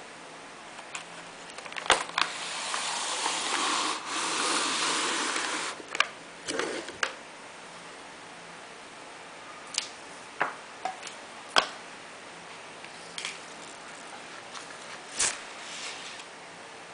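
Hands handling objects on a table: about four seconds of rustling early on, then scattered clicks and knocks as things are picked up and set down, over a faint steady hum.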